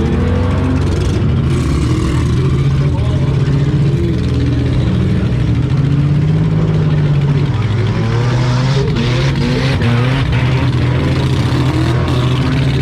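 Demolition derby car engine running under load, its pitch rising and falling as the throttle changes.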